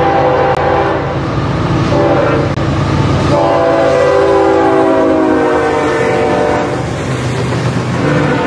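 Diesel freight locomotive's air horn sounding a chord in blasts: a short blast about two seconds in, then a long one that drops slightly in pitch, and another beginning near the end. The locomotive's diesel engine rumbles steadily underneath.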